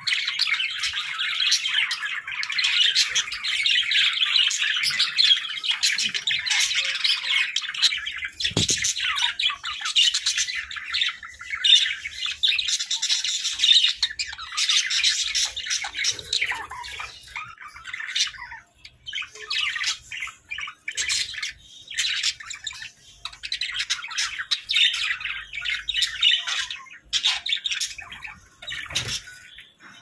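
A flock of budgerigars chattering and warbling, with squawks mixed in. The chatter is continuous at first, then from about halfway through it breaks into shorter bursts with brief pauses.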